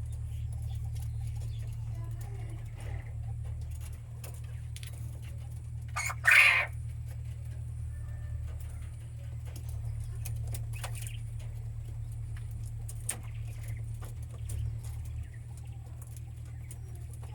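Caged quail making soft calls and scattered clicks, with one brief loud burst about six seconds in, over a steady low hum.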